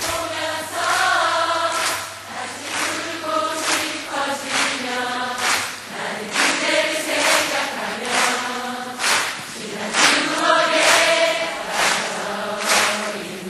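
Background music with singing voices.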